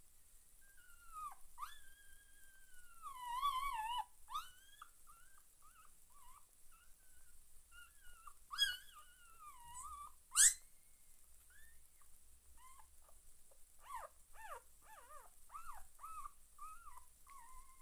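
Newborn whippet puppies whimpering and squeaking as they nurse: high-pitched cries that rise and fall, with two louder, sharper squeaks in the middle and a run of quick short squeaks near the end.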